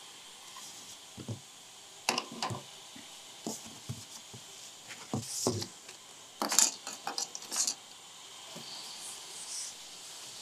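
Handling noise: irregular light knocks and clicks as printer parts and foam packing are handled by hand, with a cluster of sharper clicks about six and a half seconds in.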